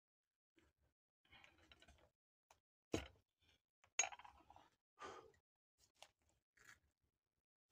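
Faint scraping and rustling of sticks in the ashes of a clay fireplace oven, with two sharp knocks about three and four seconds in as a stick hooks and moves a jug in the embers, then a few softer scrapes and taps.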